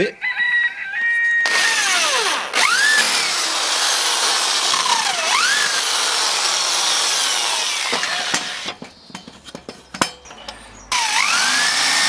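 Corded electric drill boring into a 25 mm block of pallet wood. The motor whines briefly running free, then cuts noisily while its pitch sags and recovers several times as the bit bites and loads. After a pause of about two seconds with a few knocks, a second short run starts near the end, its pitch dipping again under load.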